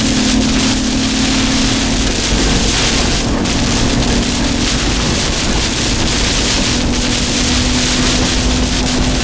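Heavy rain and wind beating on a moving vehicle, heard from inside the cabin as a loud, steady roar, with a steady engine drone underneath.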